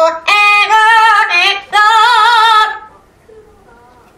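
Amazon parrot singing a wordless tune in a human-like voice: a few held, wavering high notes in about three short phrases that stop near 3 s in.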